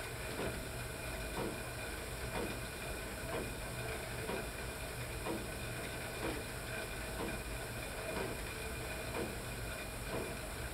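Friction-braked cycle ergometer being pedalled at a steady pace: a continuous whir from the flywheel, with a soft tick about once a second in time with the pedal strokes.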